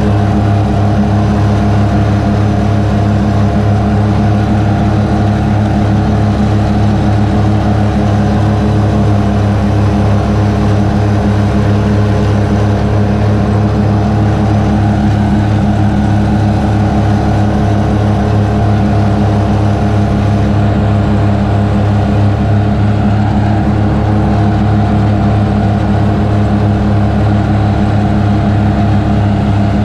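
New Holland front-deck riding mower running steadily while mowing: an even, loud engine drone with the cutting deck engaged.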